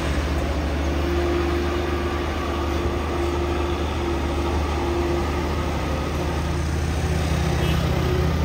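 Heavy diesel engine of a crane tow truck running steadily under load as it tows a coach slowly past, a low drone with a faint steady whine above it.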